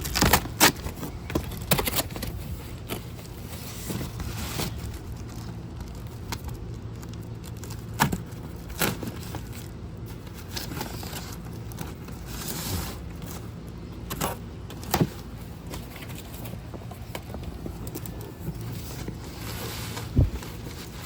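Fire pit parts and boxes being unpacked and handled: scattered knocks, clicks and scrapes of metal pieces and cardboard packaging, a few of them sharper, with rustling in between.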